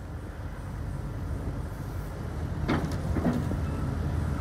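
Wacker Neuson EZ80 midi excavator's diesel engine running and gradually building as the hydraulics work the boom and bucket, with two short sharp noises about three seconds in.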